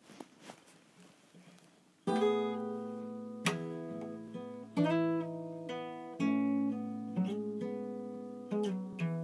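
Acoustic guitar strummed: a chord about every second, each left to ring and fade, starting about two seconds in after a couple of seconds of faint clicks.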